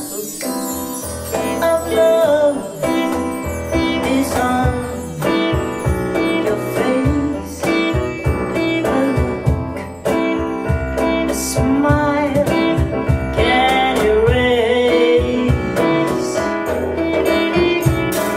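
A live band playing: a woman singing a sliding, ornamented melody over keyboard, drums and a plucked string instrument.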